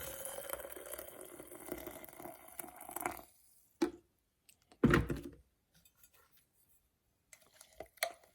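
Hot water poured from a cordless electric kettle into a French press, a steady splashing stream whose pitch rises slightly as the press fills; it stops about three seconds in. Two knocks follow, the second louder.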